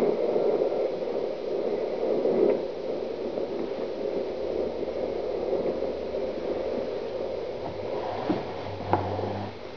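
Tractor-driven threshing machine running, a steady mechanical rush with a low hum underneath, and a few short knocks near the end.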